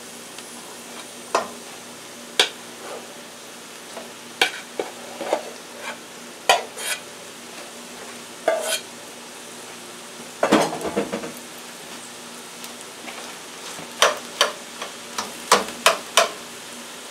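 A metal spoon scraping and knocking in a nonstick rice cooker pot and a stainless steel frying pan as cooked rice is spooned into the pan, in irregular strokes. A low sizzle from the hot pan of vegetables runs underneath.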